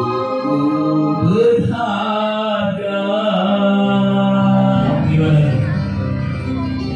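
Organ tunggal music played loud through a sound system: an electronic keyboard holding steady chords, with a singer's voice gliding in pitch over it.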